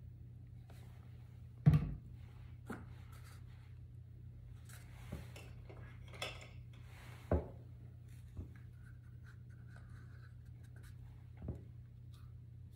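Drawing tool rubbing and scratching on paper, with about seven brief knocks of tools being handled and set down, the loudest just before two seconds in. A steady low hum runs underneath.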